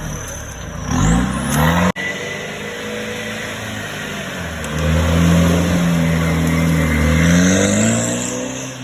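Off-road 4x4's engine revving hard: revs climb about a second in and break off abruptly near two seconds, then the engine is held at high revs from about halfway and falls away near the end.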